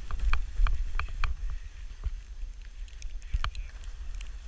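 Wind buffeting a skier's body-worn camera microphone during a downhill run: a steady low rumble under the hiss of skis on snow, with irregular sharp clicks and knocks, most frequent in the first second and a half.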